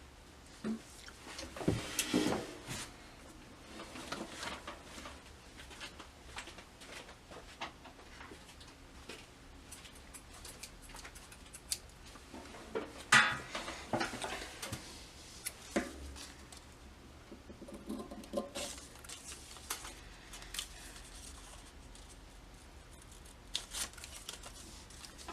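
Scissors snipping into folded origami paper, with paper rustling and crinkling as it is handled. The snips and rustles come in short scattered bursts, the loudest cluster about halfway through.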